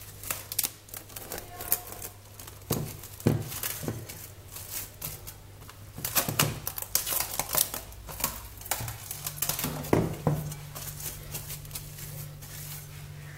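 Plastic cling film crinkling and crackling in quick, irregular clicks as it is pulled out and stretched over a bowl by hand, busiest midway.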